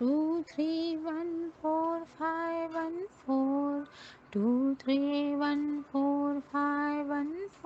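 A woman's voice chanting the number code 2-3-1-4-5-1-4 in a slow sing-song, each digit held as a steady note with small glides between them. The chant starts again about three and a half seconds in.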